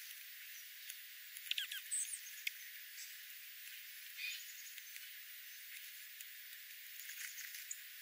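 Small ground-feeding songbirds, dark-eyed juncos and golden-crowned sparrows, feeding on seed on gravel: scattered soft pecking clicks, with a quick cluster of short chip calls and a high note about a second and a half in, and more small ticks and chips near the end. Recorded through a parabolic dish with the low end filtered out, so it sounds thin and close.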